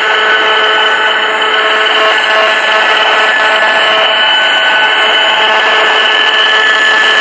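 Handheld RF meter's speaker giving a steady loud buzzing hiss with several steady tones through it: the audio of the cell-tower microwave signals it is picking up at a high level.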